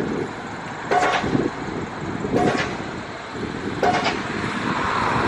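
Pile driving: a hammer striking a pile three times, about one blow every second and a half, each blow a sharp impact with a short metallic ring, over steady wind and traffic noise.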